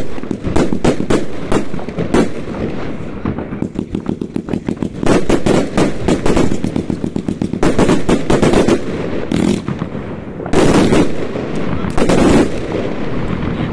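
New Year's Eve fireworks going off: rapid strings of sharp bangs and crackling, one after another, with louder bangs around the middle and near the end.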